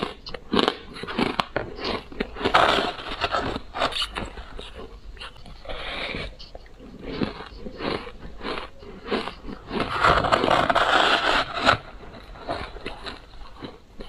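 Close-up crunching of ice being bitten and chewed: a long string of sharp, crackly crunches, densest in a run about ten seconds in.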